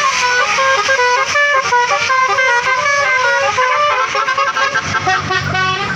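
Indonesian bus telolet "basuri" musical air horn playing a quick melody of short stepped notes. A low engine rumble grows near the end.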